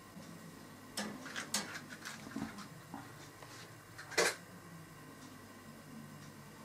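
Light kitchen clatter: a quick run of small clicks and knocks, then one sharper knock about four seconds in, over a faint steady background hum.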